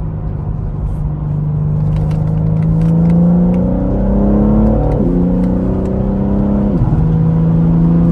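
BMW M3 Competition's twin-turbo inline-six, heard from inside the cabin, pulling with a slowly rising engine note. The pitch drops sharply about five seconds in and again near seven seconds, as the gearbox upshifts, then holds steady.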